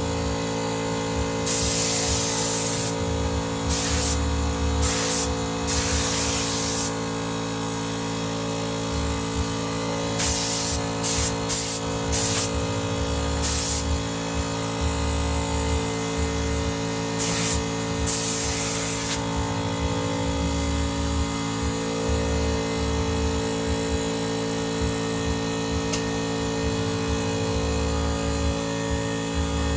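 24-litre Motomil air compressor running steadily, with repeated short hisses of compressed air being released in the first two-thirds, then the steady running alone.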